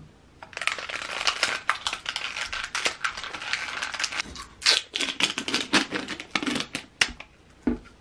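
Crinkling and crackling of a plastic tofu tub's packaging being handled and its film lid peeled back, a dense run of sharp crackles. A soft thump near the end.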